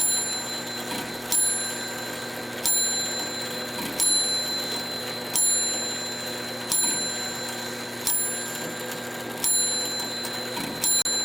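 Mechanical clock movement ticking evenly, one sharp metallic tick a little over a second apart, each leaving a brief bright ring.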